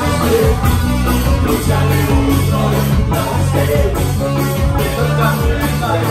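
Live ska band playing loud music: electric guitar, keyboard, bass and drums, with a steady drum beat.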